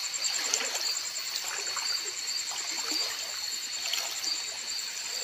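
Bare feet wading through shallow, muddy water, splashing at irregular steps, over a steady high chirring of night insects.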